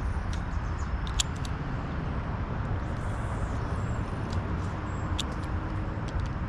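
Steady low outdoor rumble with a few faint high ticks scattered through it.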